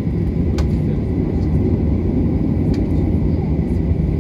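Jet airliner cabin noise while taxiing: the engines' steady low rumble heard through the cabin, with two faint clicks about half a second and nearly three seconds in.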